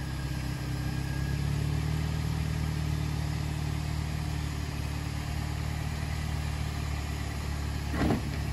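Scion xB's four-cylinder engine running steadily at low revs as the car creeps over a curb, rising slightly about a second in.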